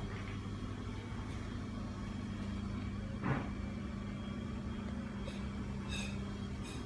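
Mitsubishi ceiling exhaust fan running with a quiet, steady low hum. A brief knock comes about three seconds in.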